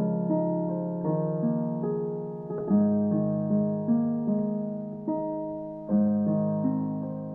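Background music: a gentle piano melody, one note struck after another, each dying away.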